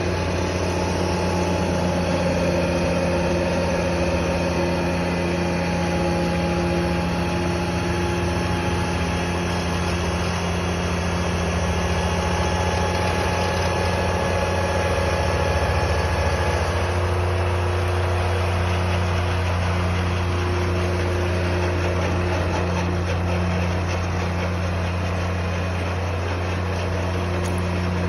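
Grasshopper 725D mower's diesel engine running steadily as it drives a front-mounted 412 snowblower through snow. The engine note shifts slightly about two-thirds of the way through.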